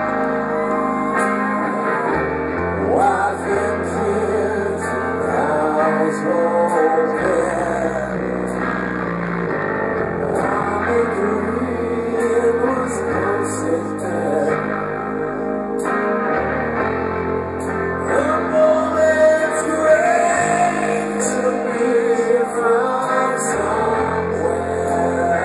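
Live rock band playing electric guitars, bass and drums, with male lead vocals singing over a slow groove, recorded from the audience on a phone's microphone.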